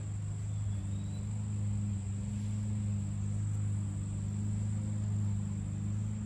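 Steady low machine hum with a thin, steady high whine above it.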